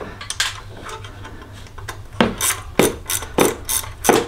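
A hand wrench tightening the 14 mm bolt on a cold air intake's support bracket in an engine bay: sharp metallic clicks and clanks, one about half a second in, then a quick run of about seven, some three a second, in the second half.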